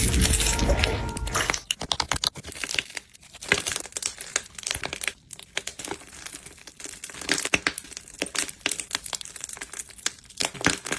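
Slime or sand play compound squeezed and pressed by hand, giving many sharp, irregular crackles and crinkles. A denser, louder rush of noise fills the first second and a half.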